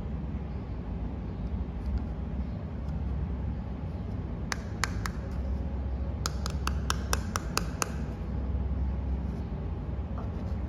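Fingernails tapping on a hard plastic toy chocolate bar: three sharp taps about four and a half seconds in, then a quick run of about eight taps, about five a second. A steady low hum lies underneath.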